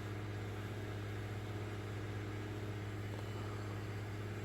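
Steady low hum with a faint buzz of overtones above it, unchanging throughout: background room tone with no speech.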